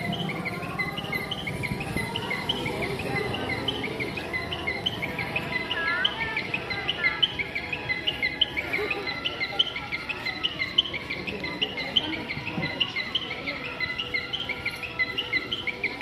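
Continuous high chirping from many small animals, several short calls a second, with a few gliding calls about six seconds in and a low murmur underneath.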